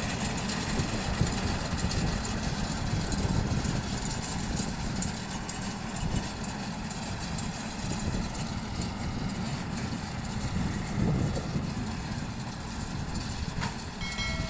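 Tractor-driven round straw baler running steadily, a low engine rumble with mechanical clatter, and a sharp click near the end.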